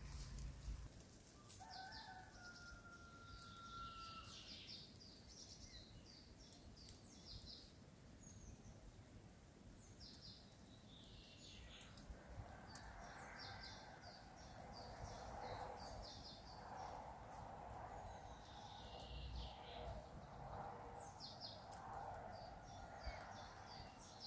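Faint birdsong in a forest: short high chirping calls repeating throughout, with one held whistled note about two seconds in. From about halfway a fainter, lower hum of background noise joins.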